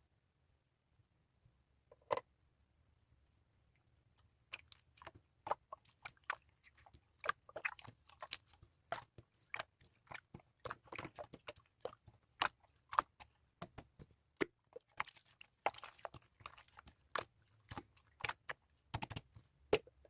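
A run of irregular sharp clicks and crunches, about two or three a second, beginning a few seconds in after near quiet.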